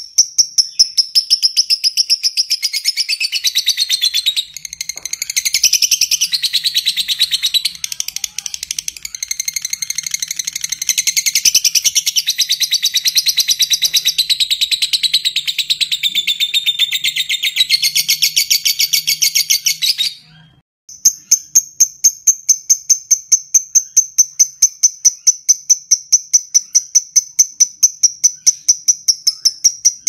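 Fischer's lovebird giving its long, fast chattering trill (ngekek), a rapid run of high notes. For most of the first twenty seconds the trill is fuller and more varied. It cuts off abruptly, and after a short gap it resumes as an even, steady pulsing.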